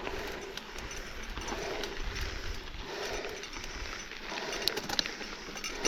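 A mountain biker's heavy breathing while pedalling up a steep trail, a breath every second or so, with bike tyres crunching over dirt and gravel and scattered small clicks and rattles from the bike.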